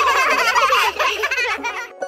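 High-pitched, childlike giggling, fading out near the end.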